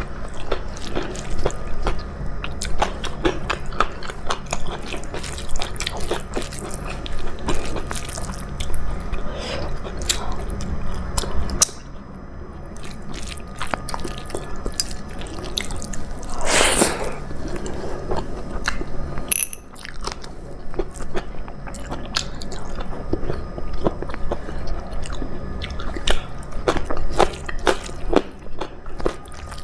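A person chewing food close to the microphone, with many irregular wet mouth clicks and smacks. There is one louder, longer smacking or slurping sound a little past halfway.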